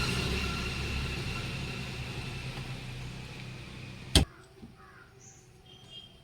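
A motor vehicle's engine running and fading steadily away, cut off by a single sharp click about four seconds in; after it only faint bird chirps.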